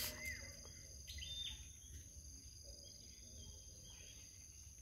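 Faint open-field ambience: insects trilling steadily at a high pitch, with a few short bird chirps over a low rumble.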